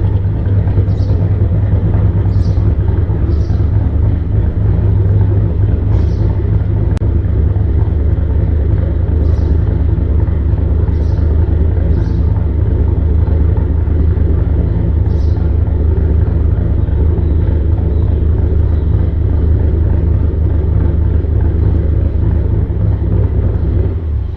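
Ford Mustang GT's 5.0 V8 running through Roush axle-back mufflers with the resonators deleted: a loud, steady low rumble at an unchanging engine speed, with brief high ticks now and then.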